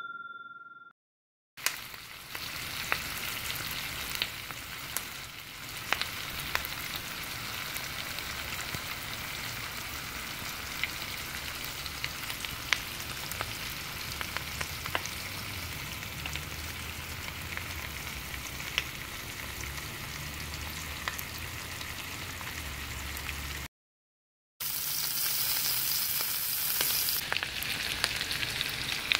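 Steaks searing in a pan of foaming butter with thyme and garlic: a steady frying sizzle with scattered pops and crackles. It opens with the fading tail of a ringing tone, then a moment of silence. Near the end the sizzle drops out briefly and comes back louder.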